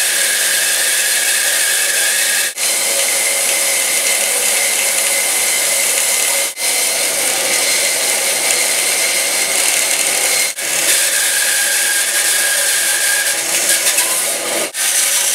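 Bandsaw running and cutting through a thick wooden timber: a steady whine with the rasp of the blade in the wood, broken by four brief dropouts.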